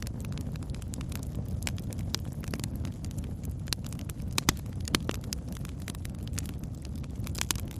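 Campfire burning: a steady low roar of flames with scattered sharp crackles and pops of burning wood, the loudest about four and a half and five seconds in.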